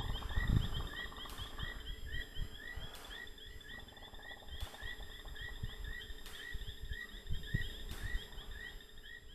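A night chorus of small chirping calls repeating about three times a second, high-pitched and steady. Soft low thuds and rustles sound underneath.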